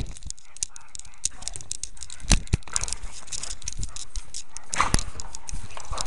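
A webcam's microphone on a dog's collar rubbing and knocking as the dog moves, with scattered sharp clicks and scrapes over a steady rustle.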